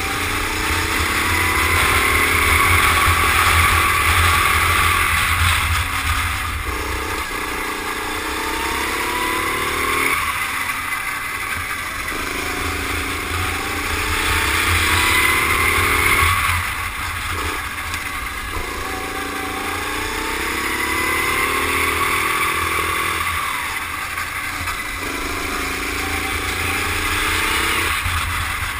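Rental go-kart's petrol engine heard on board at racing speed, its revs climbing along each straight and falling away into the corners, five times over.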